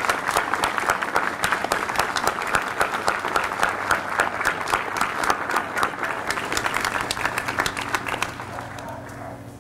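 Crowd applauding, dense clapping that thins out and dies away near the end.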